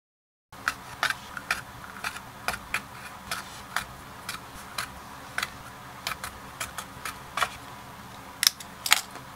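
Hand-stitching leather: a run of small sharp clicks and taps, irregular, about two a second, as needle and thread are worked through the stitching holes and the leather is handled. Near the end, two louder sharp snips as thread snips cut the thread.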